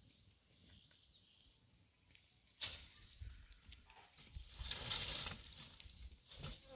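Dry brushwood rustling and crackling as it is handled and pulled from a pile, in a few short bursts, the loudest a little over halfway through.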